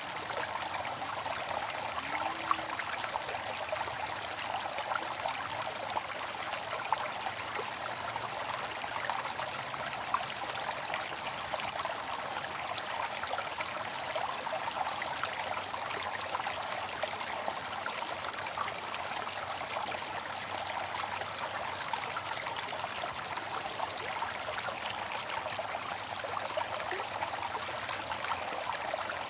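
Water fountain running: a steady trickling and splashing of falling water, with a few slightly louder splashes.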